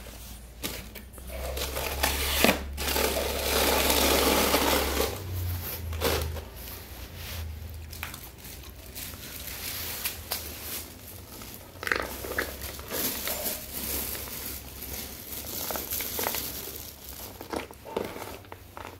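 Plastic crinkling and rustling for a few seconds early on, then scattered small clicks and chewing noises as a small mother dog eats rice and kibble off a plastic tray.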